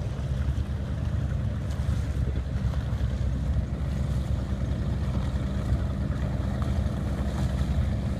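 Twin freshly rebuilt engines of a 34-foot Scarab powerboat running at low speed as the boat approaches, a steady low-pitched sound, mixed with wind buffeting the microphone.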